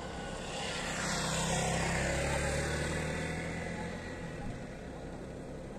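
A motorcycle passing by: its engine swells up over the first couple of seconds and then fades away.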